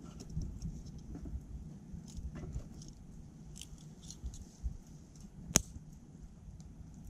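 Wood fire crackling in a small titanium wood stove, with scattered snaps and one sharp pop about five and a half seconds in.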